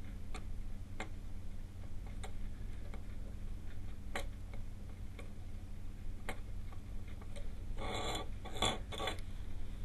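Faint, even ticking about once a second over a low steady hum, with three short rustling, scraping sounds near the end.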